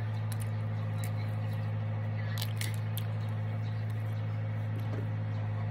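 A steady low hum throughout, with a few sharp, crisp clicks about two and a half seconds in as green mango is peeled by hand and chewed.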